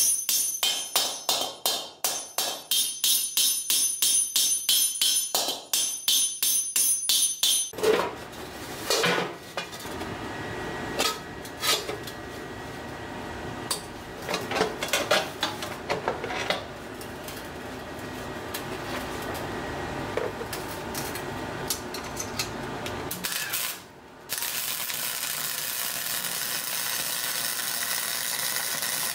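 Hammer planishing a steel helmet skull: quick, even blows with a bright metallic ring. After about eight seconds the blows become slower and irregular over a steady noise. About five seconds from the end, after a short break, a welding arc starts with a steady crackling hiss.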